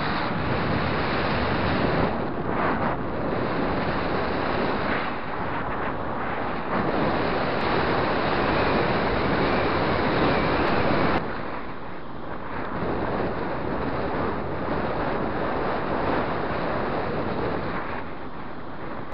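Wind rushing over the microphone of a camera riding on a moving road bike, a loud, steady rush with deep buffeting. It drops somewhat about eleven seconds in.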